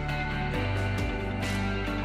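Background music with a beat and changing bass notes.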